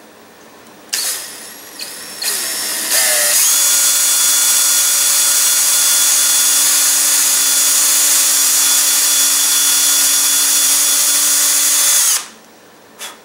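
Ryobi cordless drill with a 5/64-inch bit drilling a pilot hole through a paper rocket body tube into the centering ring behind it. The motor starts briefly twice, rising in pitch, then runs at a steady whine for about nine seconds and stops.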